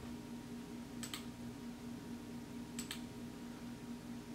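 Two faint clicks from a computer mouse or keys, about a second in and again nearly two seconds later, over a steady low hum.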